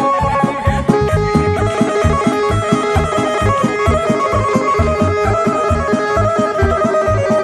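Traditional Balkan folk dance music for a kolo circle dance, with a fast, steady beat under a sustained melody line.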